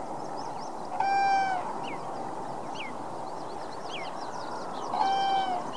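Birds calling over a steady outdoor hiss. A larger bird gives two clear, drawn-out calls, each about half a second and dipping slightly in pitch, about four seconds apart. Small birds chirp and whistle faintly in between.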